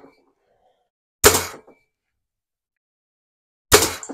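Daisy 499B spring-air BB gun firing twice, about two and a half seconds apart, each shot a sharp crack. Near the end the BB strikes the shot-up aluminium soda can, which rattles briefly.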